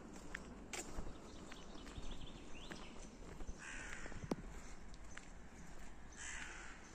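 A crow cawing: two harsh calls, one a little past halfway and one near the end, with faint scattered ticks underneath.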